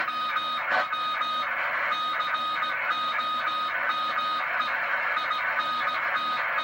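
Morse code (CW) received on a DAK 10 Mark II CB radio: a single steady tone keyed on and off in short dits and longer dahs over constant receiver static, with one sharp click about a second in.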